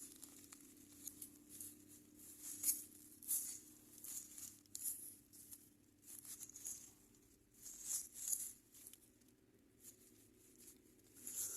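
Hands rummaging through soil in a worm box for earthworms: soft, irregular scratchy rustles coming in short clusters.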